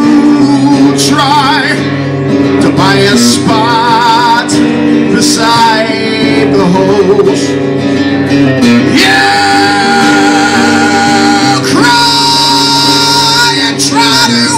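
A man singing while playing a guitar, live. He holds several long notes with a wavering vibrato, the longest near the end.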